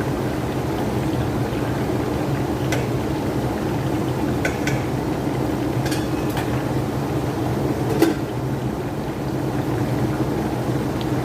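Whole chicken deep-frying in a pan of hot oil: a steady bubbling sizzle with a few sharp pops and crackles spread through.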